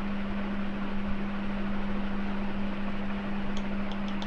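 Steady low hum with an even hiss, like a fan or other appliance running in the room, with a few light clicks near the end as a small spoon taps against the steel mixer-grinder jar.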